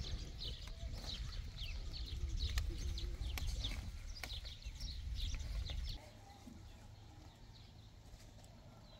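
A flock of sheep grazing, with wind rumbling on the microphone and many short high bird chirps. About six seconds in, the wind noise and chirps stop abruptly and it turns much quieter.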